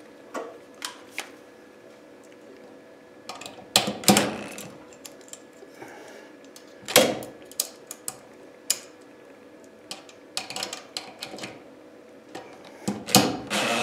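DeWalt cordless driver running in short bursts, driving screws to fasten a round metal electrical box to a wooden joist, with clicks and knocks from handling the box and tool; the longest burst comes near the end.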